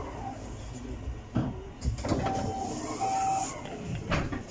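Two short, high electronic beeps inside a Bolloré Bluebus 12-metre electric bus, over the bus's low running rumble and a faint rising-and-falling whine, with a knock about a second and a half in.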